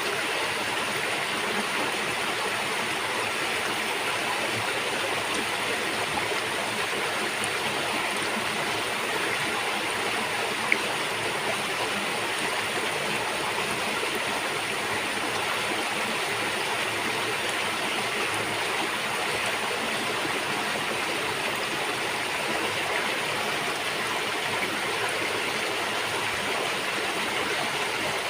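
River water rushing and gurgling over rocks, a steady even rush of running water, with one brief click about eleven seconds in.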